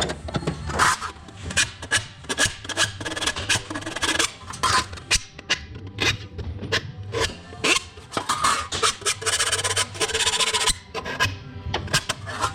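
Rasping scrapes on the metal of a vintage pedal car being worked for rust repair, in irregular strokes about two a second, over background music.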